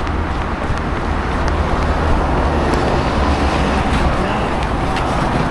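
Steady road traffic noise on a city street.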